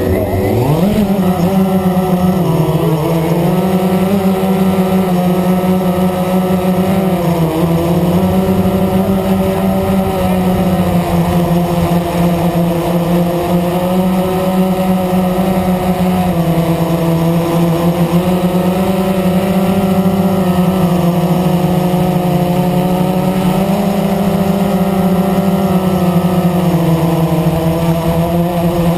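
Blade 350 QX quadcopter's four brushless motors and propellers spinning up for takeoff, rising quickly in pitch about a second in, then running steadily in flight with small rises and falls in pitch. Heard loud and close from the camera mounted on the drone.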